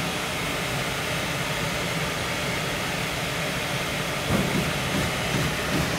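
Bruderer progressive stamping press with in-die laser welding starting its run: a steady machine noise, then from about four seconds in a few low knocks as the press begins to stroke.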